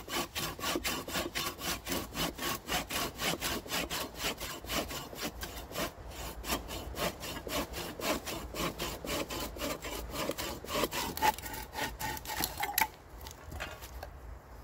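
Hand saw cutting wood in quick, even strokes, about five a second, stopping suddenly near the end.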